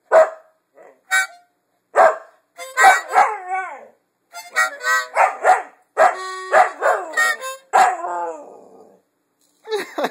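A husky howling and barking along with a harmonica played in short phrases. Among the steady harmonica notes, the dog's calls slide downward in pitch, and the longest stretch of howling runs from about three to nine seconds in.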